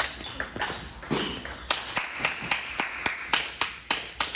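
Table tennis rally: the celluloid-type plastic ball clicking sharply off the rackets and the table, several clicks a second in quick succession.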